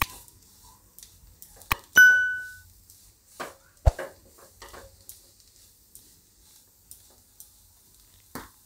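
Spatula scraping and knocking against a nonstick frying pan while stirring a dry, crumbly gram-flour and onion mixture, in short irregular strokes. A single sharp ringing clink, like metal struck, comes about two seconds in.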